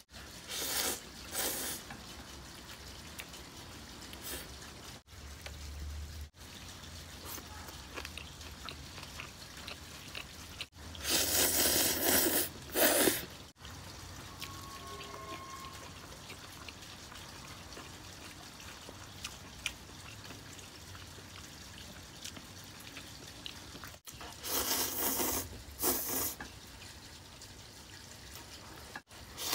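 A person slurping instant noodles loudly in three bursts: a short one about a second in, a long one around the middle, and another a few seconds before the end. Quiet wet chewing and mouth sounds come between them over a steady low hum.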